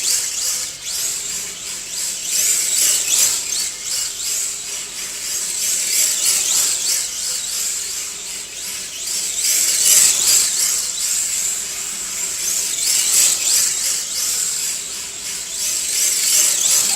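Electric RC drift car running, its small motor giving a high-pitched whine that rises and falls in loudness with the throttle.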